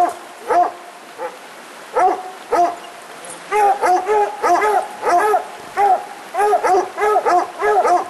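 Two coonhounds barking treed at the base of a tree, the bark of hounds that have a raccoon up it. The barks come a few at a time at first, then quicken to several a second from about halfway through.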